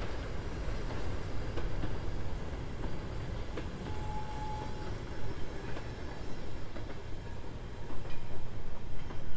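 Goods wagons of a freight train rolling past: a steady low rumble of steel wheels on the rails with irregular clicks and clanks as the wheels cross rail joints. A brief thin squeal sounds about four seconds in, and the rumble grows louder near the end.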